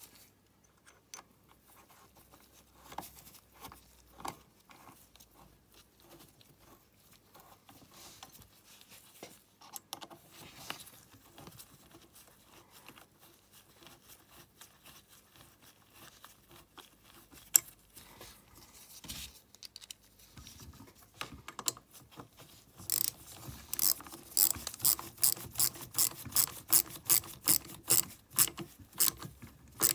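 Small socket ratchet clicking in a quick, even series of strokes, about three or four a second, in the last seven seconds, as it tightens the screws holding a pocket bike's carburetor to the intake manifold. Before that there are only faint, scattered clicks of small parts and tools being handled.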